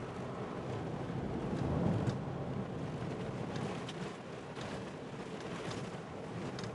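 Road noise heard inside a moving vehicle on a wet, muddy dirt road: a steady rumble of tyres and engine, with a few scattered light ticks.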